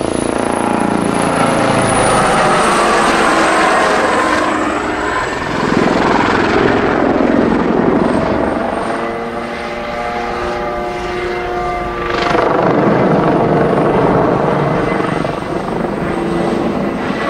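Kawasaki OH-1 light helicopter, with its twin turboshaft engines, flying low overhead: a loud, steady rotor and turbine sound whose pitch slides as the helicopter passes, twice.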